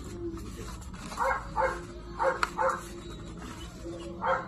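A dog barking in short calls: two pairs of barks and a single bark near the end, with one sharp click between them.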